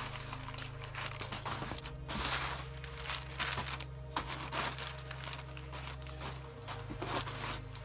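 Crumpled newspaper packing rustling and crinkling in irregular bursts as it is pulled out of a cardboard box, over soft background music.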